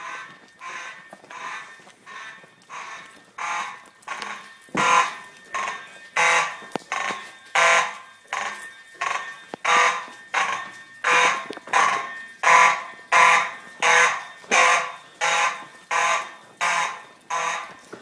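Fire alarm horn sounding a buzzing tone in evenly repeated pulses, about one and a half a second, getting louder from about five seconds in.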